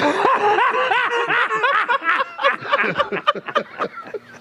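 Laughter: a quick run of chuckles that is strongest at first and thins out after about three seconds.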